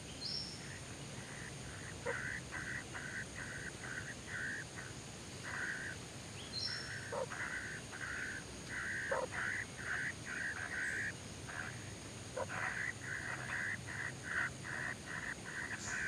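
Kingfisher calls at a nest of young: runs of short harsh notes repeated about three times a second, with a couple of brief higher rising chirps.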